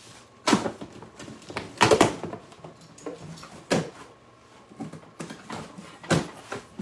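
Four sharp knocks a second or two apart, the loudest about two seconds in, with rustling between: cardboard boxes and packages being handled.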